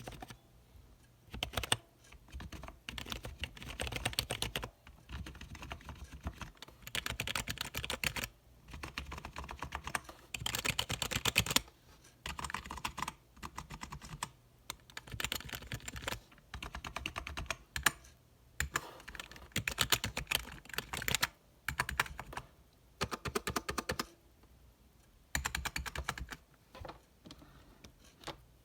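Typing on a cheap, budget keyboard: rapid key clicks in bursts lasting one to a few seconds, with short pauses between them.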